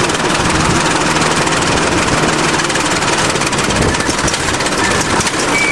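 A 20-ton bulldozer's diesel engine running steadily under load as the dozer pulls away slowly in first gear.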